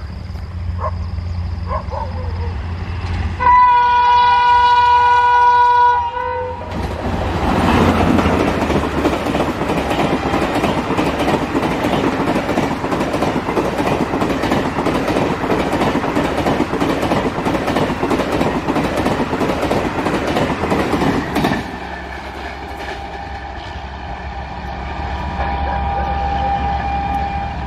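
Electric-hauled Garib Rath express passing at speed. The locomotive sounds one long horn blast of about three seconds. The coaches then rush by with wheels clattering over the rail joints, a loud roar that cuts off suddenly and leaves a quieter, steady rumble of the train running away.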